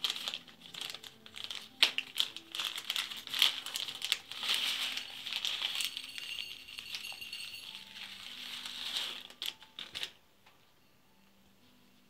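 Small plastic bag crinkling as tiny beads are shaken out of it, with the beads clicking and rattling onto a glass plate. The handling stops about ten seconds in.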